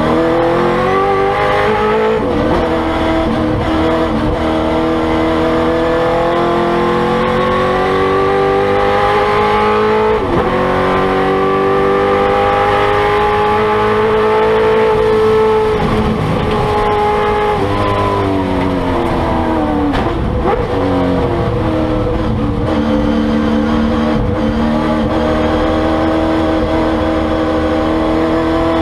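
1970 Chevrolet Camaro historic Trans Am race car's V8 engine at racing speed, heard from inside the stripped cockpit. The revs climb and break at each gear change, fall away through several downshifts around the middle, then climb again.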